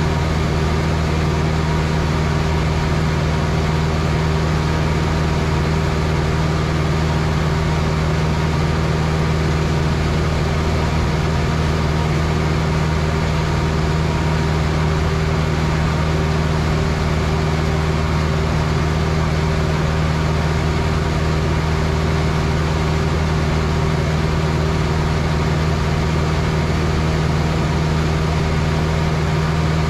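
Cessna 162 Skycatcher's four-cylinder Continental O-200 engine and propeller running steadily in flight, heard inside the cabin as a loud, even drone with a low hum and rushing wind noise.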